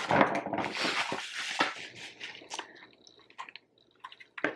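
Crunchy rustling and crinkling of plastic packaging as the ring light is handled and lifted out of its box, loudest in the first two seconds, then trailing off into a few light clicks and taps.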